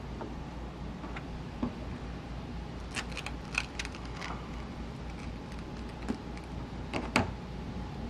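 Small sharp clicks and scrapes of a pry tool worked behind a Chevrolet bowtie emblem to break its double-sided adhesive tape, coming in a cluster about three to four seconds in and again near seven seconds, over a steady low hum.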